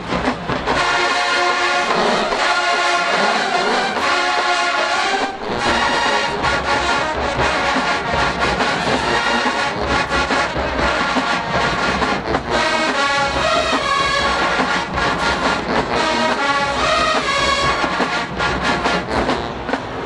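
College marching band playing loud, sustained brass chords, with sousaphones and drums.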